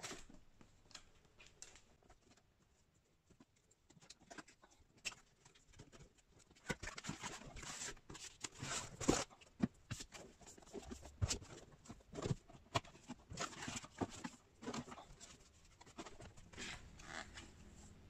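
Graphics card packaging being handled by hand: rustling with a run of short clicks and taps, sparse at first and busier and louder from about seven seconds in.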